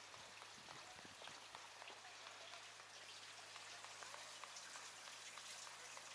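Faint trickling and dripping water: a dense, even patter of many tiny drops.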